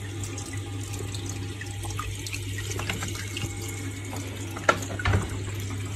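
Aquarium filter running: a steady trickle of water falling into the tank over a constant low hum. Near the end come two sharp knocks.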